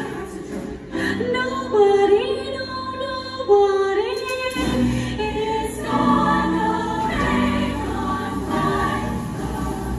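Show choir singing with instrumental accompaniment: held and sliding vocal lines in the first half, then a fuller ensemble sound with a strong bass from about halfway.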